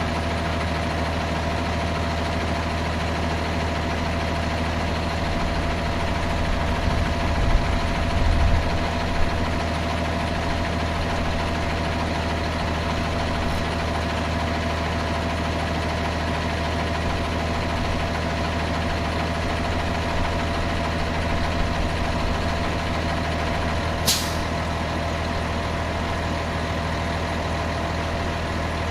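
An engine idling steadily, with a few dull knocks about seven to nine seconds in and one short sharp click near the end.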